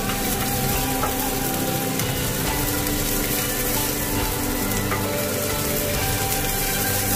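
Sliced onion and minced garlic sizzling steadily in hot oil in a frying pan, stirred and pushed around with a wooden spatula.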